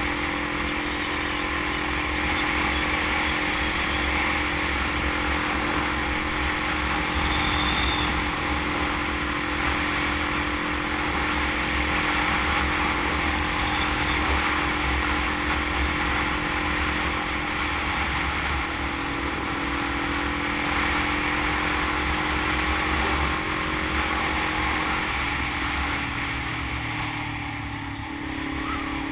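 Sport motorcycle's engine running at a steady cruise, with wind and road noise rushing past. Near the end the engine note falls and dips in level as the throttle is eased, then picks up again.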